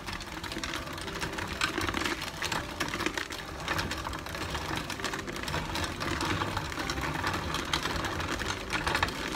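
Antique hand-cranked cast-iron corn grinder milling dried corn: a dense, steady clattering crackle as kernels are crushed and fine meal pours out.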